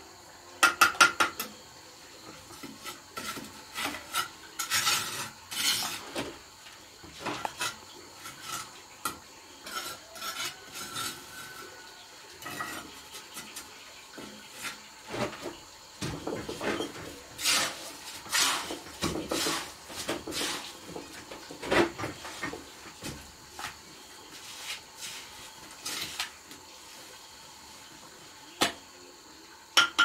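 Steel bricklaying trowel scraping and spreading mortar and tapping bricks into place, an irregular run of sharp metallic clinks and scrapes, with a quick burst of taps about a second in.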